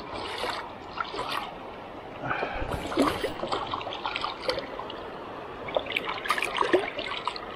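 Shallow river water trickling and splashing around the angler's hand as a small hooked trout is grabbed in the water, with irregular splashes, the busiest about a third of the way in and again near the end.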